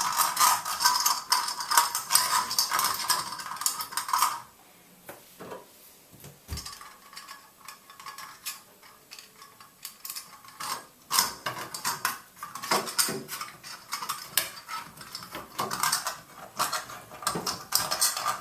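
Small metal parts clinking and rattling as the shower valve's trim plate and its long screws are handled and fitted. The clinking comes thick for the first few seconds, thins to a few scattered knocks, then picks up again in the second half.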